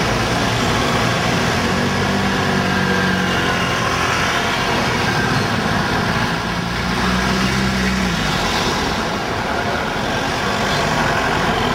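Busy street traffic: vehicle engines running steadily under a constant noise of the road. One engine hum holds for several seconds and then drops away about eight seconds in.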